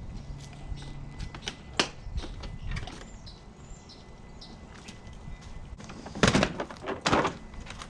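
Handling noises from work on the small motorbike: scattered light clicks and taps, a sharp click about two seconds in, then two louder short scraping rustles near the end.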